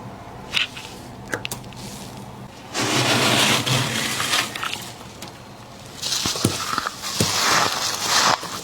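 Fluffy freezer frost crunching and crackling, in two long spells starting about three seconds in and about six seconds in, with a few sharp clicks before them.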